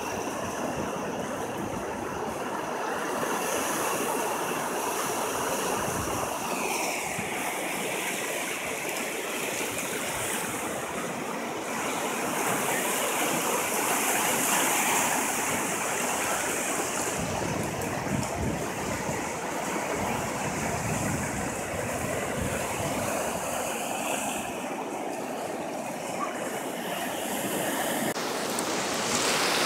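Ocean surf washing in over the dark lava rocks of the shore: a steady rush of breaking and draining water, swelling a little louder for a few seconds about halfway through.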